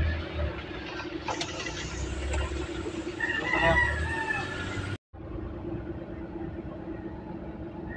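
A rooster crowing over low thumps of footsteps. After a sudden cut about five seconds in, a car engine hums steadily.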